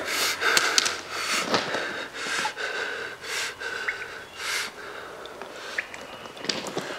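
A person breathing heavily, with about one loud breath a second that grows weaker and fades after about five seconds.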